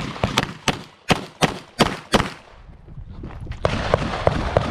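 Glock 34 9mm pistol fired in a fast string, about three shots a second for the first two seconds, then a short pause. In the last second, quieter pops come over a rushing noise.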